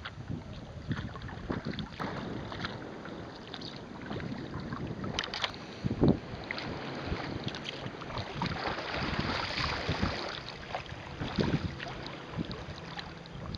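Water slapping and splashing against a moving sea kayak's hull as it is paddled through light chop, with wind buffeting the microphone. A louder splash comes about six seconds in.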